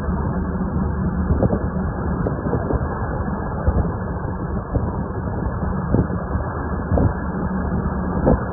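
Steady low drone of a boat's engine, muffled, with a few short sharp knocks about a second and a half in, around six and seven seconds in, and near the end.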